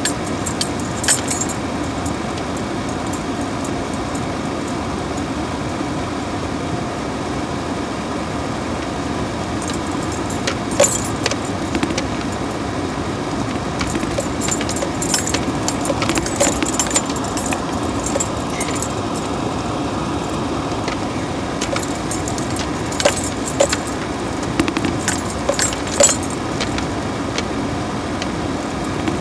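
Cab noise of a pickup truck driving slowly on a rough dirt trail: a steady rumble of engine and tyres on gravel, with bursts of small clinking and rattling, like keys jangling, as the truck jolts over bumps, strongest about ten, sixteen and twenty-five seconds in.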